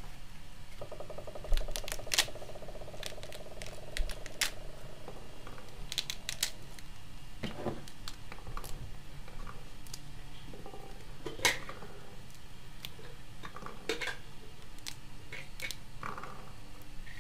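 A kitchen knife scoring a pomegranate's rind with a buzzing rasp. The fruit is then pulled apart and its seeds drop onto a plate in scattered sharp clicks.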